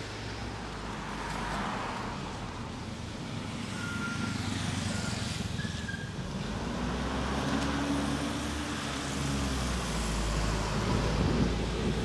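Street traffic: a bus drives past, its engine note rising and then falling about halfway through, over a steady low rumble of traffic. A few short high-pitched tones sound shortly before it passes.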